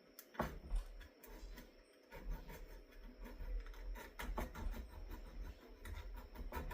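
Hand file scraping across a steel fastener clamped in a vise, deburring it in a run of short strokes that get steadier after about two seconds.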